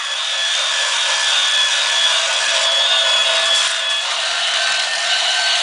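Battery-powered toy train engines whirring steadily, their small electric motors and plastic gears running.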